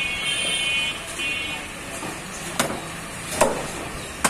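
Butcher's knife chopping beef on a wooden chopping block: three sharp knocks, a little under a second apart, in the second half. Before them a shrill horn sounds in two short blasts.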